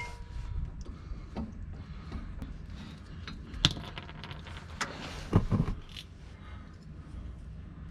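Scattered metallic clinks and taps of tools and parts being handled during U-joint work, with a few louder knocks about three and a half and five and a half seconds in.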